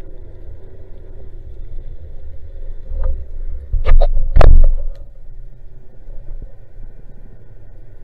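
Muffled underwater rumble of water moving over a camera's waterproof housing as a diver swims down, with a quick cluster of loud knocks about halfway through.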